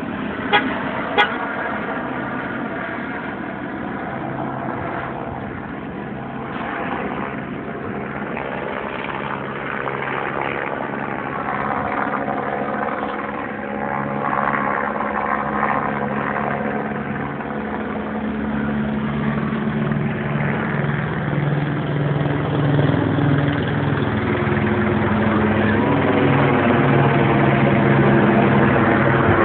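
Steady engine drone from a vehicle, growing louder toward the end, with two sharp clicks just after the start.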